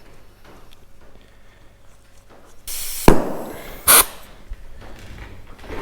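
Compressed air hissing into a seized motorcycle brake caliper, with a sharp bang about three seconds in as a piston is blown out of its bore, then a second short blast of air.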